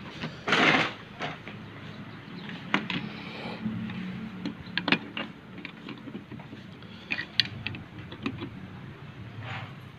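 Handling noise of a TV power supply circuit board being carried and set onto the TV's metal back chassis: a loud scraping rustle about half a second in, then scattered sharp clicks and taps.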